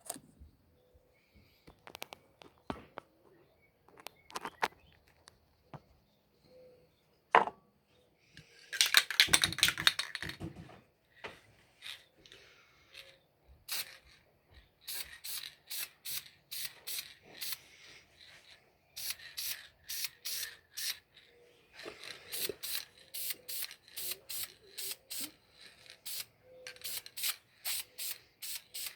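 Aerosol can of VHT Wrinkle Plus paint spraying: one longer spray about nine seconds in, then from about halfway a run of short, quick hissing bursts, about two a second. This is the diagonal third coat going onto a small part.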